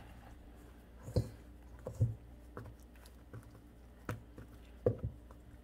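Raw chicken pieces being pressed and patted into seasoned flour in a stainless steel bowl with a gloved hand: a string of soft, irregular taps and dull thuds.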